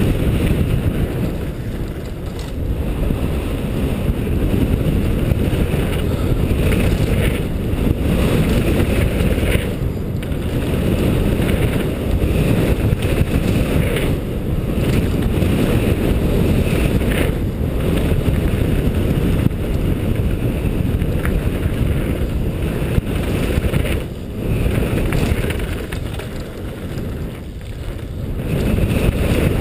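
Wind buffeting a helmet-mounted GoPro's microphone over the steady rumble and rattle of a downhill mountain bike rolling fast over a dirt trail.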